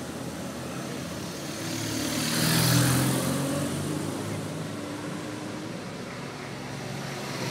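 Motorcycle passing close by: its engine hum and road noise swell to a peak about three seconds in, then fade. Near the end, more motorcycles are heard approaching.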